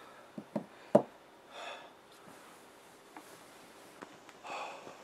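A few small knocks and a sharp click in the first second, the loudest about a second in, then two short sniffing breaths, one about a second and a half in and one near the end.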